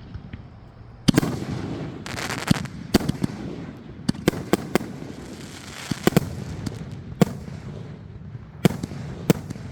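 Aerial firework shells from Pirate King and Redemption being fired together and bursting in loud bangs. About a dozen sharp reports come irregularly, some in quick pairs, with crackle between them.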